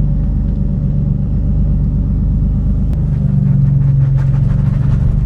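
Nissan 350Z's V6 engine running as the car drives off on a test drive, pulling harder about three seconds in. There is no clunk or click from the newly fitted CV axles and hubs.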